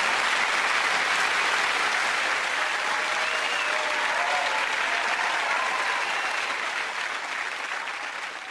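Studio audience applauding steadily, then fading out near the end.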